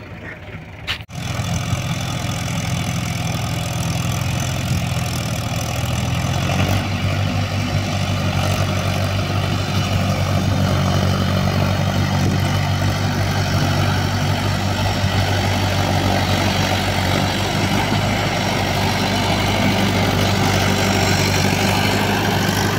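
Mahindra tractor's diesel engine running steadily under a loaded trolley, with a sudden break about a second in.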